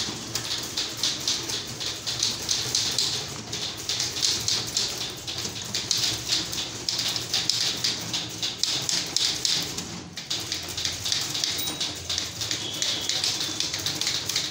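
Manual typewriters, a Godrej among them, being typed on at speed by several typists at once: a fast, unbroken clatter of key strikes.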